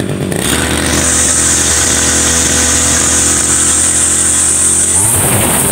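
Small engine of a backpack brush cutter running loudly, revved up about half a second in and held at high speed; at about five seconds the sound turns rougher and climbs higher still. The machine is being run hard, which is treated as abusing it and damaging the machine.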